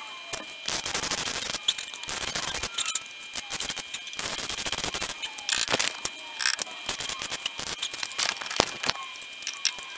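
Welding arc crackling and spitting in repeated bursts of about a second each, with short pauses between, as a steel repair patch is welded into the rusted rear end of a car's sill.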